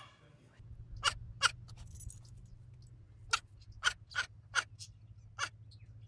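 About eight very short, sharp animal squeaks, irregularly spaced, over a steady low hum.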